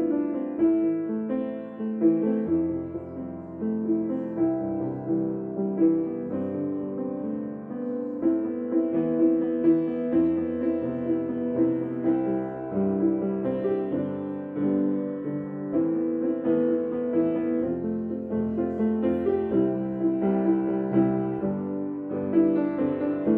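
Background piano music, a gentle piece of many soft notes over held low notes.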